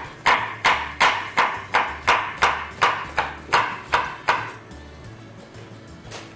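Kitchen knife chopping tomatoes on a cutting board: a quick, even run of about a dozen strokes, roughly three a second, that stops about four seconds in. Faint background music plays underneath.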